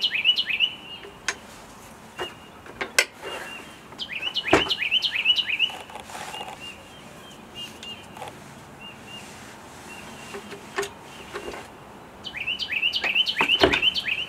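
A songbird singing in three bouts, each a quick run of down-slurred chirps ending on a higher, buzzy note. A few sharp knocks and clicks come in between.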